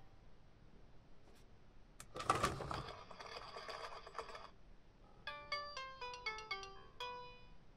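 VTech Go! Go! Smart Animals giraffe toy coming down its plastic ramp track: a click about two seconds in and a couple of seconds of noisy sound, then the toy's speaker plays a short electronic jingle of quick beeping notes ending on a held note.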